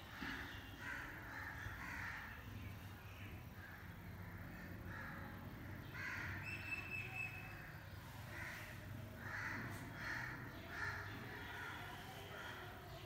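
Crows cawing repeatedly, a harsh call every second or so, with a brief high steady tone about halfway through.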